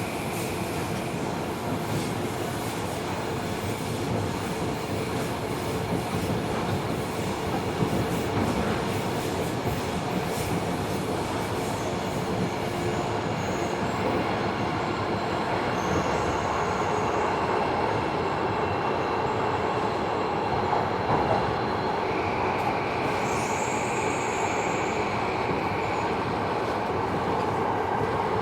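Tobu 70000 series subway train heard from inside the car while running, a steady rumble of wheels and traction motors. Brief high-pitched wheel squeals come about halfway through and again about three-quarters in.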